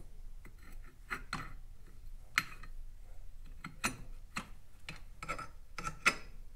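Irregular metallic clicks and clinks as a steel variator holder tool is fitted against a scooter's variator pulley, about half a dozen separate taps, the sharpest about two and a half seconds in and near the end.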